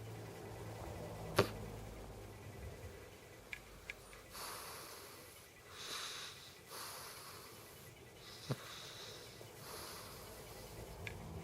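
A sleeping cat snoring: a low rumbling breath at first, then a run of airy, hissing breaths about a second apart. A few sharp clicks come through, the loudest one about a second and a half in.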